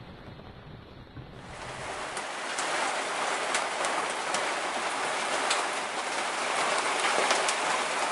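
Heavy rain on a sailing yacht. It is first heard muffled, as a soft low rumble through the cabin hatch. About a second in it becomes a loud dense hiss of downpour, peppered with sharp taps of individual drops.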